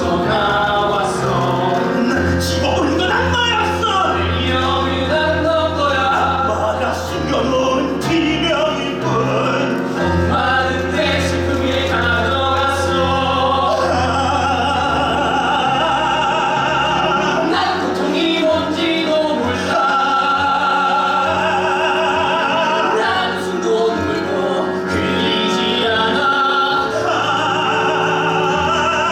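Musical theatre number sung live: voices holding long notes with vibrato over instrumental accompaniment with a sustained bass line.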